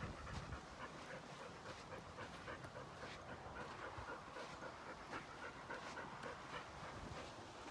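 A dog panting quickly and evenly.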